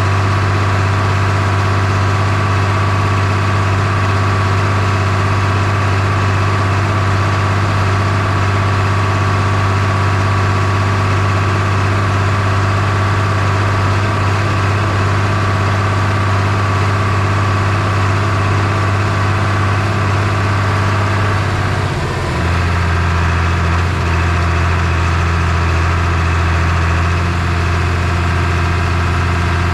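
Farm tractor engine running steadily, close up. About three-quarters of the way through, its pitch drops a little and stays lower, as the engine slows.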